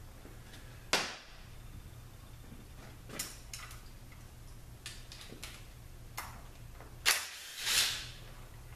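A few scattered sharp clicks and knocks of hand tools and metal parts as the output speed sensor is unbolted and pulled from a Ford 6F35 transmission case, with a brief scraping noise near the end, over a faint steady hum.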